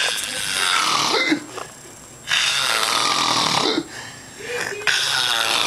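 A sleeper snoring loudly: three long, harsh snores about two and a half seconds apart, with quieter breathing between them.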